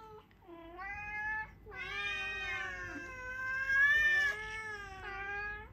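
Domestic cats meowing: a short meow about half a second in, then one long drawn-out meow lasting nearly four seconds.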